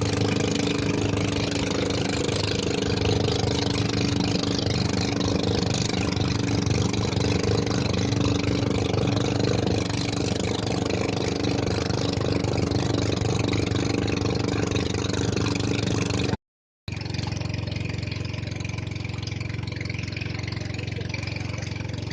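A small engine running steadily at an even speed, cut off briefly by a drop to silence about sixteen seconds in before carrying on.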